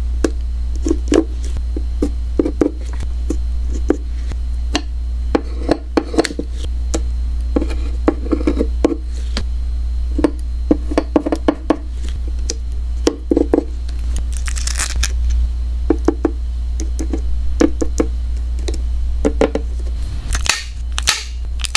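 Tweezers and fingers handling small clear plastic stickers on a paper card: irregular light taps, clicks and crinkles, with a brief rustle about two-thirds of the way through. A steady low hum runs underneath.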